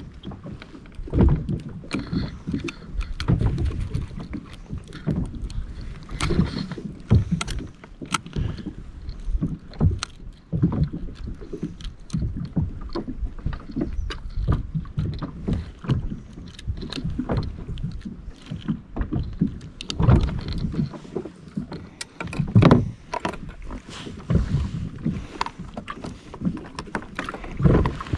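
Water slapping and splashing against a fishing kayak's plastic hull in uneven surges, with scattered sharp clicks and knocks.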